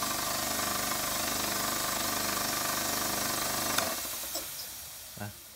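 Portable Makita electric air compressor (550 W motor, 1440 rpm) running steadily, then switched off with a click about four seconds in, leaving a fading hiss of escaping air. The hiss is an air leak, which the seller suspects is a leaking gasket.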